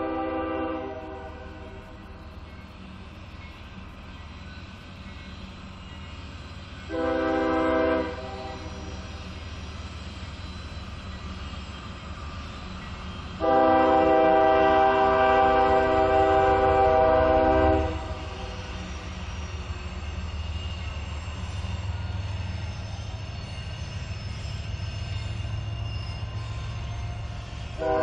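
CSX freight locomotive's multi-tone air horn: a blast that cuts off within the first second, a short blast about seven seconds in, and a long blast of about four seconds starting about halfway, with another beginning right at the end. Between blasts there is a low rumble of the approaching train, growing louder in the last third.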